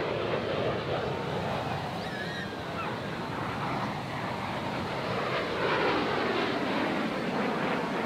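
Jet noise from a USAF Thunderbirds F-16 Fighting Falcon in flight overhead: a steady rushing sound that grows a little louder about six seconds in.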